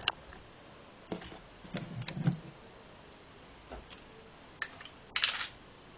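A few light plastic clicks and knocks from a Lego-brick gun being handled and fired at a small target, then a short, louder rattling snap about five seconds in.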